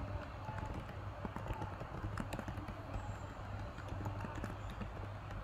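Computer keyboard typing: scattered, irregular keystrokes over a steady low hum.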